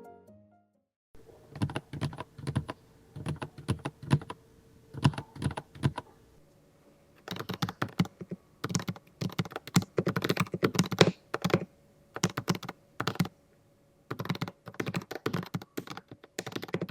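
Typing on a mechanical keyboard fitted with Kailh Deep Sea pink islet silent linear switches: keystrokes in irregular runs, starting about a second in, with a short break in the middle and faster typing after it.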